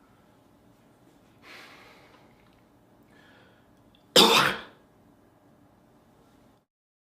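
A man coughing once, a single loud, sharp cough about four seconds in, preceded by a quieter breathy sound near the start.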